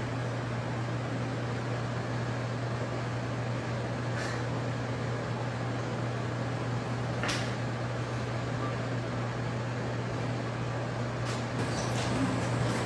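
Steady low mechanical hum, with a few faint sharp clicks.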